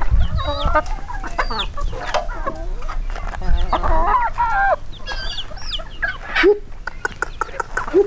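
A large flock of free-range chickens clucking and squawking, many short calls overlapping one another.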